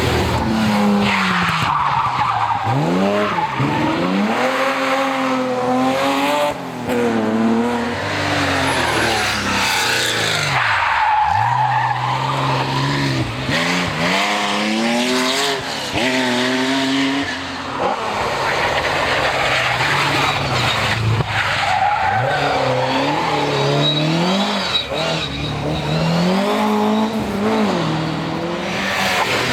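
Historic rally car engines at full throttle on a special stage, revving up and dropping back again and again through gear changes and corners, with tyre noise on the loose surface.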